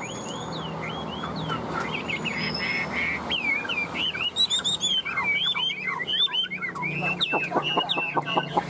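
Chinese hwamei singing a continuous, varied run of whistled phrases that glide up and down, breaking into a fast series of short repeated notes near the end.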